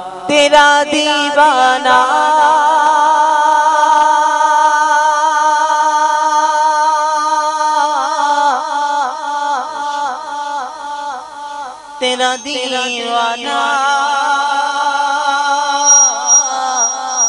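Naat being sung, a voice holding long wavering notes and ornamented turns, then starting a new phrase about twelve seconds in.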